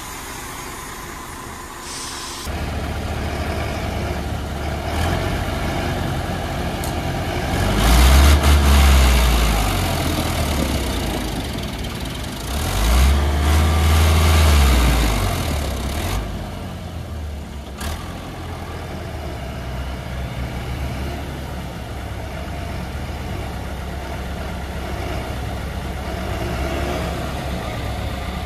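Heavy diesel engines, a farm tractor's and a log-laden truck's, working to pull the truck out of deep mud. The engines surge loudly twice, about eight and thirteen seconds in, and otherwise run steadily.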